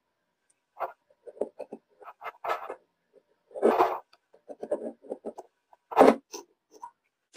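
Steel hammer-drill parts being handled and fitted together on a wooden workbench: a string of separate clinks, taps and short scrapes, the loudest a little under four seconds in and about six seconds in.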